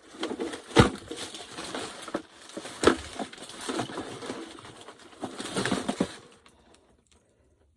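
Handling noise as gear is picked up and moved about: rustling with a few sharp knocks, the loudest about a second in and about three seconds in, stopping about six seconds in.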